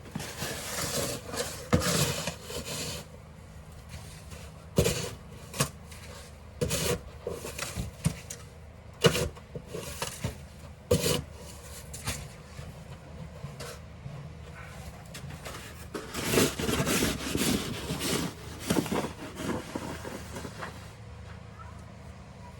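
Snow shovel scraping and pushing through snow in irregular strokes, some short and sharp, with a run of longer scrapes about three-quarters of the way through.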